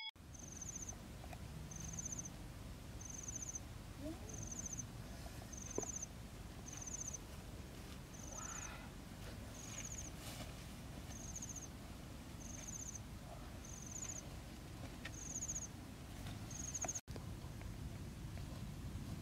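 High chirps repeated about once a second, each a quick run of pulses, from a small calling animal. Beneath them is a steady low outdoor rumble with a few faint clicks.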